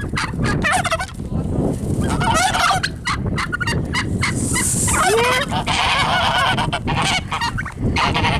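A mixed flock of domestic geese and turkeys calling over one another: geese honking and turkeys gobbling in many short, overlapping calls, some rising in pitch.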